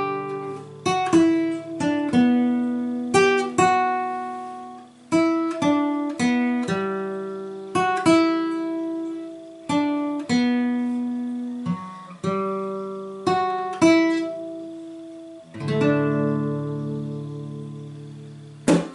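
Acoustic guitar music: a slow melody of single plucked notes, each left to ring out, closing on a fuller chord that is held and then briefly struck again near the end.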